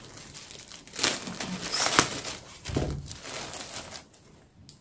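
Clear plastic yarn packaging crinkling as it is cut open with scissors and handled, with sharper crackles about one and two seconds in; it stops about four seconds in.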